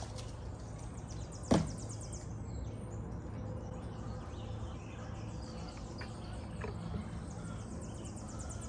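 Outdoor farmyard ambience with a steady low hum. A single sharp knock comes about 1.5 s in. A high, fast trill of ticks (insect or bird) sounds twice, once near the start and again near the end.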